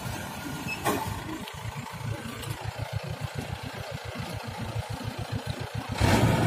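Rice combine harvester's engine running with a regular low throb while it cuts, with a single knock about a second in; at about six seconds the sound suddenly becomes louder and steadier.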